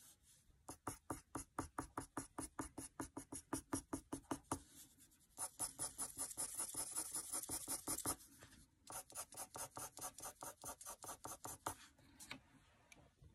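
Pencil scratching on paper in fast back-and-forth cross-hatching strokes, about five a second, with short pauses about 5 and 8 seconds in, stopping near the end.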